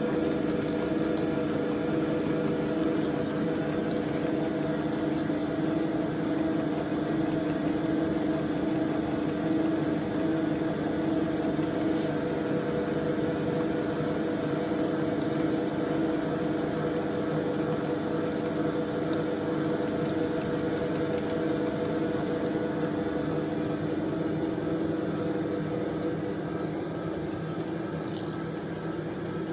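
Milling machine running steadily: an even motor and spindle hum with a few held tones, easing slightly near the end.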